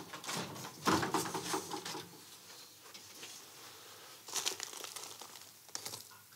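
Dry straw and nesting material rustling and crinkling in irregular bursts as a person handles it and kneels down in it.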